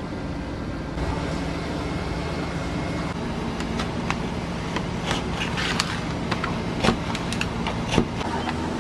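Scissors snipping and paper crinkling in a run of short sharp clicks that begins about three and a half seconds in, loudest near the end, over a steady low machine hum.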